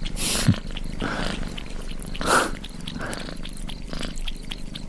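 Domestic cat purring steadily in a low, even rhythm. A short thud about half a second in and a brief louder rush of noise a little over two seconds in stand out over the purr.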